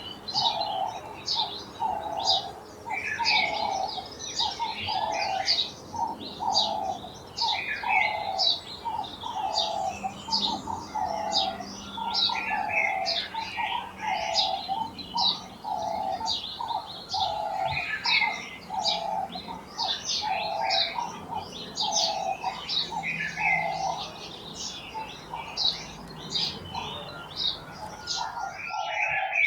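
Garden birds singing and chirping: one bird repeats a low, even note about once a second while several others chirp rapidly above it.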